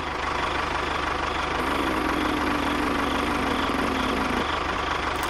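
An engine idling steadily with a fast, even low pulse, a second steady tone joining from about one and a half to four and a half seconds in.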